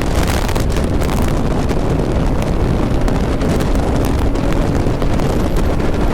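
Heavy wind noise buffeting the microphone at highway speed, with a motorcycle engine running steadily underneath.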